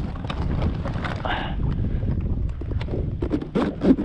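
Wind buffeting the microphone, over rustling and scattered clicks from an insulated fish bag as a halibut is pushed in among ice at its zippered opening, with a couple of sharper clicks near the end.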